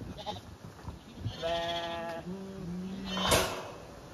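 Zwartbles sheep bleating: a higher call about a second and a half in, then a lower, longer one, with a short sharp noise just after three seconds.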